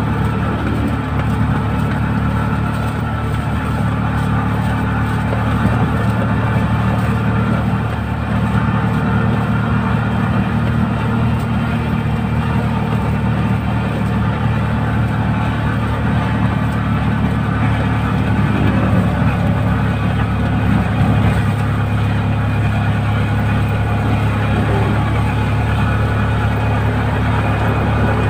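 Engine of a small motor vehicle running at a steady cruise with a constant low drone, mixed with road and wind noise, heard from inside the cab while driving.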